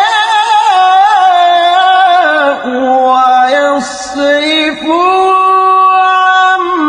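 A male Quran reciter's voice in melodic tajwid recitation, drawing out a long ornamented phrase with wavering turns. The pitch dips lower with short breaks midway, then rises to a long held note near the end.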